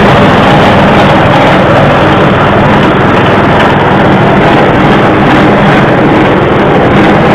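Livestock feed chopper machine running steadily and loudly, a constant motor drone with a steady noise of the cutting rotor.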